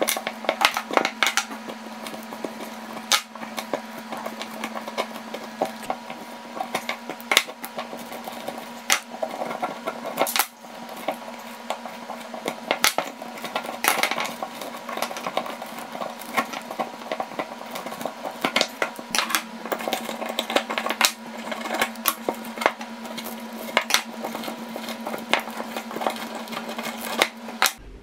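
Screwdriver and pliers scraping and clicking against a small electric fan motor's steel stator as the old copper windings are pried and pulled out: irregular sharp metallic clicks and scrapes over a steady low hum.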